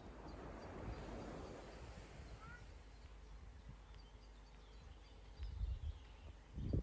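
Wind on the microphone, with louder gusts near the end. Faint high bird chirps are heard, and one short rising call comes about halfway through.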